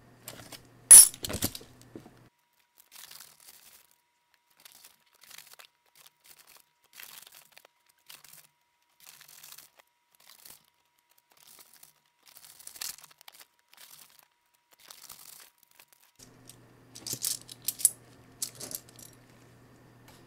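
Kennedy half dollar coins clinking against each other as they are sorted and stacked by hand. One loud clink about a second in, then scattered soft clicks, and a quick cluster of clinks near the end.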